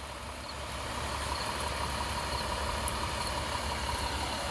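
A motor vehicle's engine idling with a steady low hum, over a constant background hiss.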